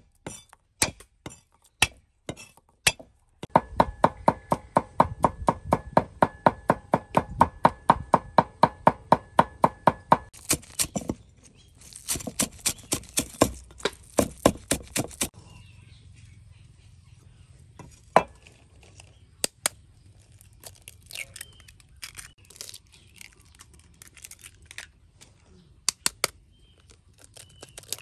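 Cleaver chopping garlic and green onions on a wooden chopping board. A few scattered chops, then a long run of rapid, even chops that ring, a second fast run, and sparse knocks near the end.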